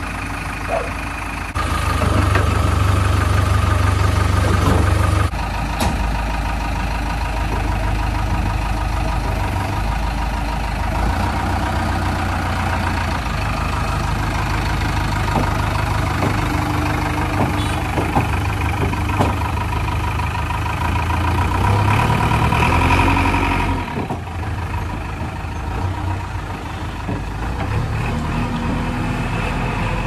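JCB 3DX backhoe loader's diesel engine running steadily, revving up louder at times as the hydraulics work the arm and loader, with a brief rise in pitch about 22 seconds in. The level jumps abruptly about 2, 5 and 24 seconds in.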